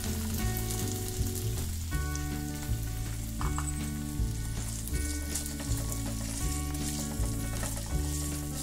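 Boiled potato cubes and cumin seeds sizzling in hot oil in a nonstick frying pan, stirred with a silicone spatula near the end, over background music with a steady bass line.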